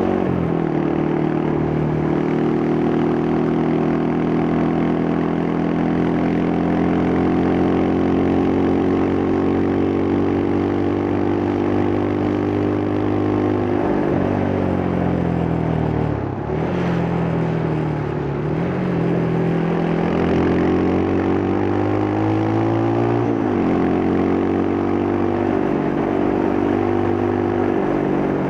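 Yamaha Scorpio's single-cylinder four-stroke engine through its stock exhaust, under way: a steady note for the first half, then the revs fall as the bike slows about halfway through. It pulls again, with the pitch rising and stepping at each gear change.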